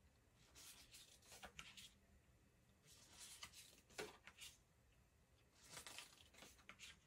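Tarot cards being slid off the deck and laid on a pile, a soft sliding rub for each card, three times about two seconds apart, with a light tap as a card lands about four seconds in.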